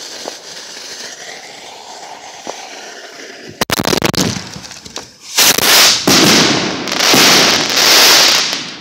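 Fireworks going off at close range: a quieter hiss, then a sharp crack about three and a half seconds in, then from about five seconds in a loud, dense spray of hissing and crackling that surges several times.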